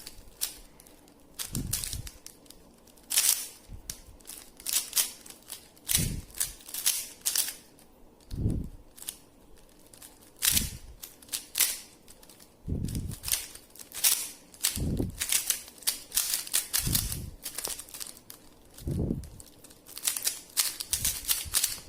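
A 3x3 Rubik's cube being speed-solved: its plastic layers clicking and clacking in rapid bursts of turns, with short pauses between bursts. Low thuds come every couple of seconds.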